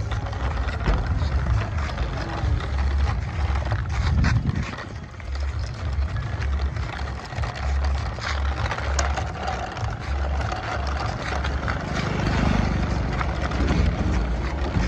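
Toy tin tractor and its soil-loaded trolley rolling over rough stone paving, the plastic wheels giving a continuous low rumble with rattling clicks.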